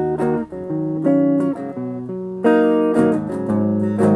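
Electric guitar played through a Marshall Origin 5C, a 5-watt all-tube combo amp with an 8-inch Celestion speaker, giving a fairly clean tone. Ringing chords and notes change every half second to a second, with a harder strum about two and a half seconds in.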